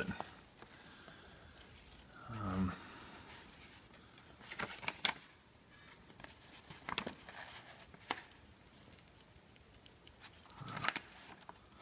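A cricket trills steadily in the background while a few short hisses of a Rust-Oleum aerosol spray-paint can spraying through a paper stencil come about halfway through. A brief murmured voice sounds about two seconds in.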